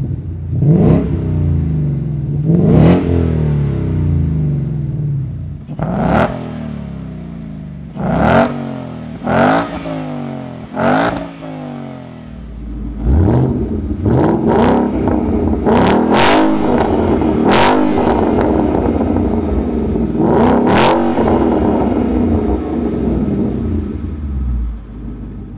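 A 2015+ Mustang GT's V8 revved in place through aftermarket axle-back exhausts, in a string of short rising blips over idle. First comes a Flowmaster American Thunder; from about halfway a Ford Performance by Borla Touring idles and is blipped a few more times.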